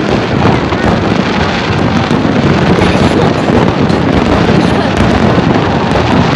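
Large aerial fireworks display, shells bursting in quick succession into a dense, continuous crackle with no pauses.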